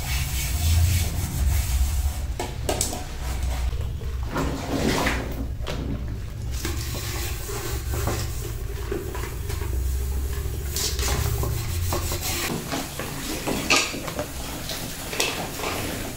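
Dishes being washed at a kitchen sink: tap water running while a metal frying pan and an aluminium pressure cooker are scrubbed and handled, with scattered clinks and knocks of metal. The sharpest knock comes late on.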